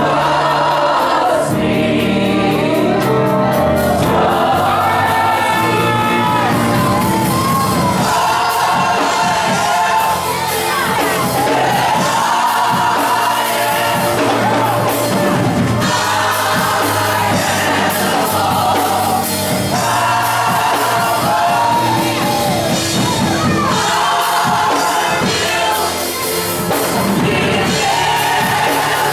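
Gospel choir singing with keyboard and percussion accompaniment, loud and continuous.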